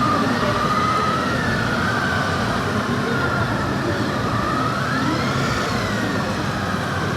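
Police motorcycle siren wailing, its pitch rising and falling slowly, over a steady bed of engine and crowd noise.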